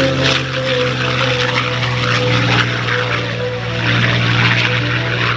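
North American P-51D Mustang's Packard-built Rolls-Royce Merlin V-12 engine and propeller droning steadily in flight, rising and falling slightly in loudness.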